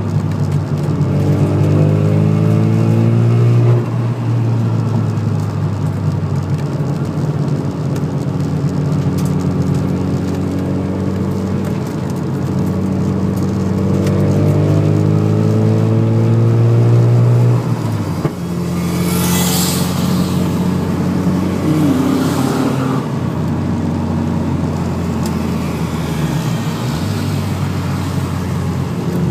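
Car engine heard from inside the cabin on a circuit lap: revving climbs in pitch under acceleration and falls back sharply a few times at gear changes or lifts for corners. A brief hiss comes about two-thirds of the way through.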